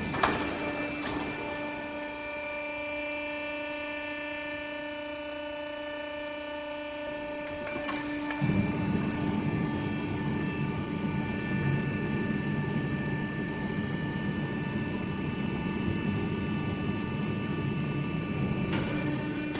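FASA-19 automatic strapping machine running: a steady machine hum with several held whining tones, a sharp click just after the start, and a louder, lower running noise that comes in about eight and a half seconds in and keeps going.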